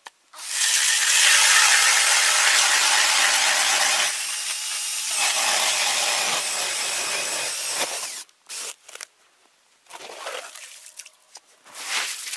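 Makita cordless drill driving a Tonar hand ice auger through thick lake ice, the motor running flat out as the blades cut. It eases a little about four seconds in and stops after about eight seconds. A few shorter noises follow near the end.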